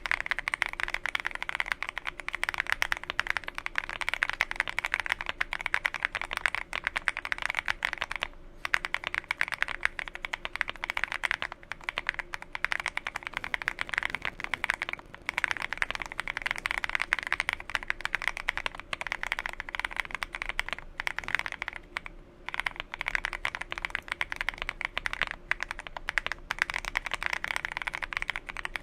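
Fast, continuous typing on a Monsgeek M1 mechanical keyboard with Akko Crystal Silver switches: a dense patter of keystrokes, pausing briefly three times.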